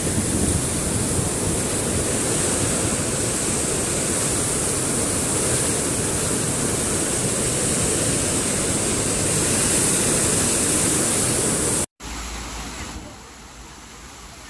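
Loud, steady rush of a muddy flood torrent in a swollen river. It cuts off abruptly near the end, replaced by a quieter rush of water.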